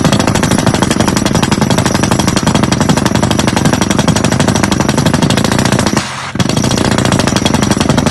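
Drill rig's percussive hammer running, a loud rapid hammering that drops away for a moment about six seconds in.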